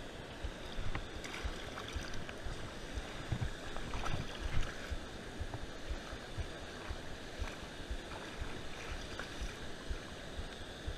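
Steady rush of river water spilling over a small rock waterfall, with frequent low thumps of wind buffeting the microphone.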